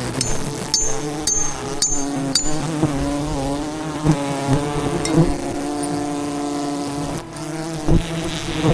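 Swarm of wild honey bees buzzing around a large hive: a dense, steady drone that wavers slightly in pitch. Five sharp high ticks, about two a second, in the first few seconds.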